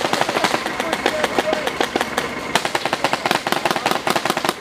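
Paintball markers firing rapid, overlapping shots, many a second, in a sustained exchange of fire.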